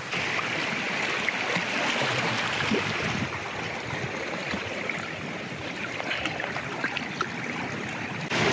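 Choppy seawater sloshing and washing, with a few small splashes from a hooked sea bass thrashing at the surface.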